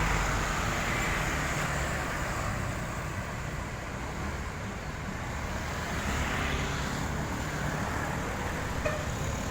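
Road traffic passing: vehicle engines running over tyre noise, swelling as vehicles go by about a second in and again around six seconds in.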